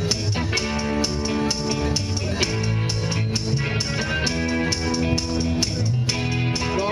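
A live blues-rock band playing through a PA: drum kit with a steady cymbal beat, bass and electric guitar. Over it runs a line of held, bending notes from a harmonica played into a cupped vocal microphone.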